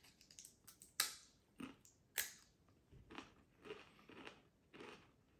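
Doritos tortilla chips being bitten and chewed: two sharp crunches about one and two seconds in, then smaller chewing crunches about twice a second.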